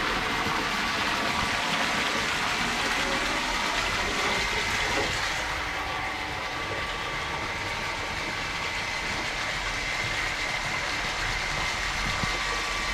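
Water from a garden hose jetting into a partly filled inflatable pool: a steady splashing gush of water pouring into water.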